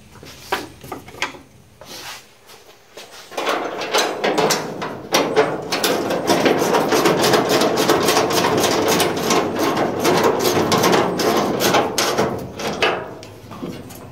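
Hand ratchet clicking as it runs a bolt down on a hood-prop bracket: a few single clicks, then from about three seconds in a long run of rapid clicking that stops near the end.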